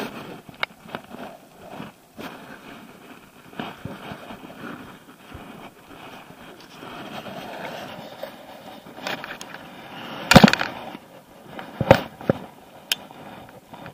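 Handling noise in an aluminum jon boat: scattered clicks and knocks of hands and fishing gear against the boat, with one loud knock about ten seconds in and two sharper ones about a second and a half later.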